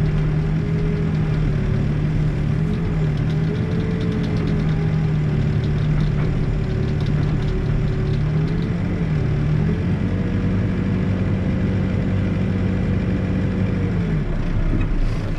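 Backhoe engine running steadily under hydraulic work. About ten seconds in its pitch dips briefly and then rises a little and holds, and it drops back near the end.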